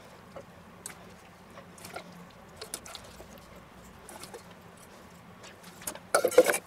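Potato slices being laid by hand from a stainless steel bowl into a ceramic casserole dish: soft scattered taps and slaps of slices dropping onto the layer. A brief louder clatter about six seconds in.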